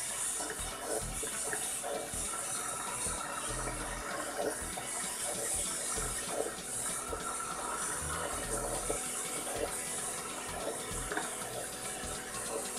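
Wooden spoon stirring a thin coconut-milk mixture in a stainless steel saucepan: liquid swishing and sloshing with each stroke, with soft low thumps about once a second over a steady high hiss.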